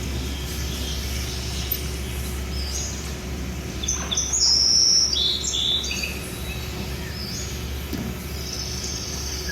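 Birds chirping and tweeting in short, high calls, densest and loudest in the middle, over a steady low hum.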